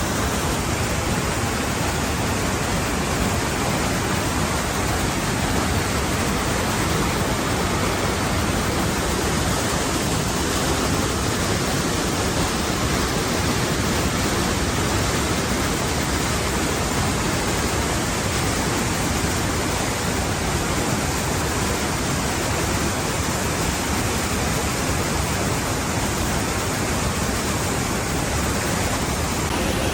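Waterfall: a steady rush of falling water, unbroken throughout.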